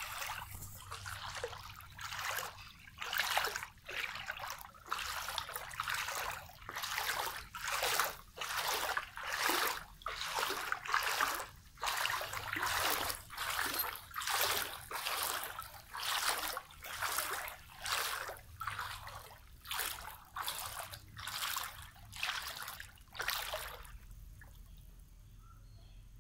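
Floodwater splashing and sloshing in a steady rhythm, about one and a half surges a second, as someone moves through it; the splashing stops near the end.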